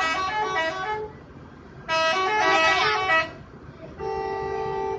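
Multi-tone telolet air horn on a Dewi Sri bus playing a stepped melody of short notes. One phrase ends about a second in and a second phrase plays around two to three seconds. Near the end a steady chord is held for about a second.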